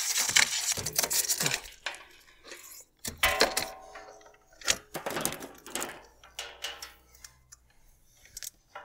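Handling noise of a coil of solar PV wire with MC4 connectors and a small solar panel being moved into place: a string of quick rustles, knocks and plastic clacks.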